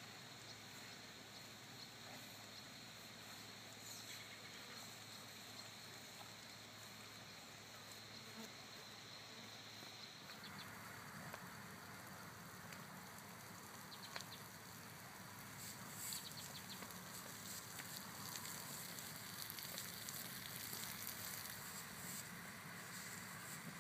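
Faint outdoor ambience with a steady insect buzz. The background shifts abruptly about halfway through, after which soft scattered ticks are heard.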